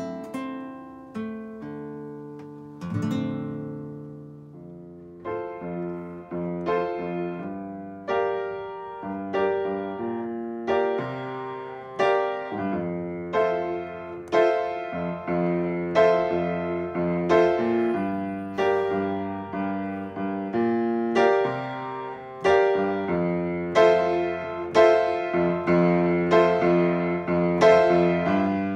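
An acoustic guitar's last chords ring out and fade over the first few seconds. Then, from about five seconds in, an upright piano plays a steady run of notes and chords, roughly one or two a second.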